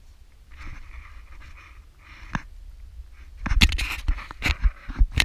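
Footsteps scuffing and knocking down steep stone steps, bunched together in the second half, with hard breathing in soft puffs before them.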